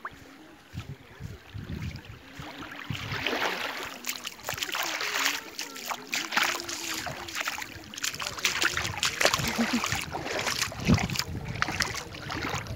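Shallow seawater lapping and sloshing over wet sand at the shoreline, growing louder a few seconds in.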